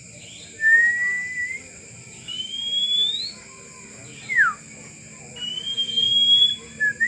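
A person whistling single long notes that slide upward in pitch, with one quick falling note in the middle and short quick notes near the end, the way a kacer (Oriental magpie-robin) is whistled to in training. A faint steady high tone hums underneath.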